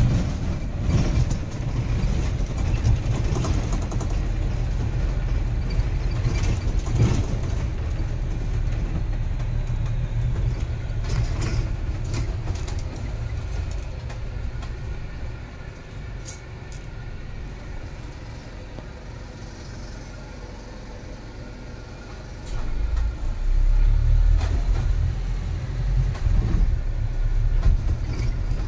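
Low, steady rumble of a vehicle in motion. It drops quieter about halfway through and grows louder again about 22 seconds in.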